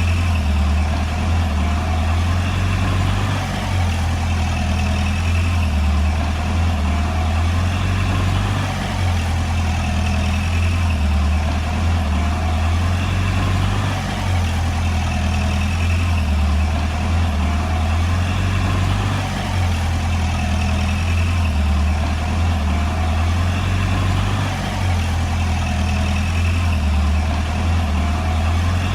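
Heavy diesel engine running steadily, its loudness dipping slightly every few seconds.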